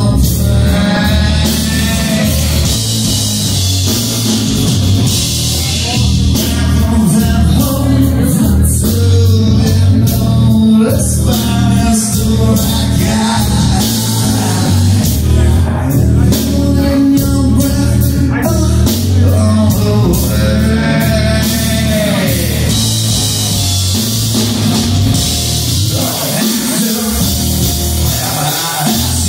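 Live rock band playing: lead vocals sung over electric guitar, bass and drums, loud and continuous.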